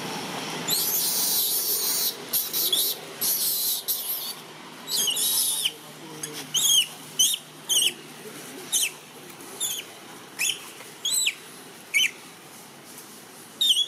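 Baby long-tailed macaque crying: harsh, high screams for a few seconds, then a run of short, high, arching squeals about once a second.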